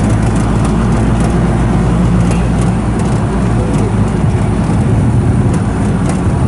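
Auto-rickshaw's small engine running steadily with road rumble while driving, heard from inside the passenger cabin.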